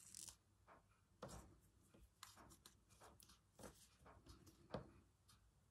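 Faint rustles and light ticks of hand sewing: a needle pushed through fabric wrapped on a wooden cotton reel and the thread drawn through, several times over.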